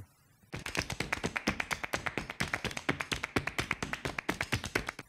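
Keyboard-typing sound effect: a quick run of sharp tapping clicks, about ten a second, that starts about half a second in and stops just before the end.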